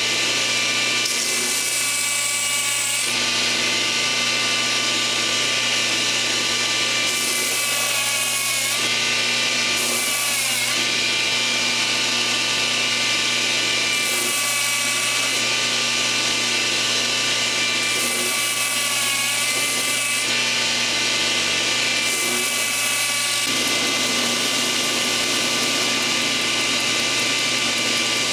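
Belt grinder running, its motor giving a steady hum, with repeated stretches of hissing grind as the blade of a vintage chef's knife is pressed to the belt. The motor's pitch sags briefly under the load about ten seconds in, and from about two-thirds through the grinding is continuous.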